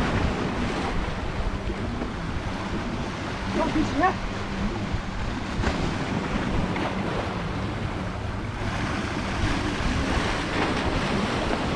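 Sea waves washing and splashing against shoreline rocks, with wind buffeting the microphone.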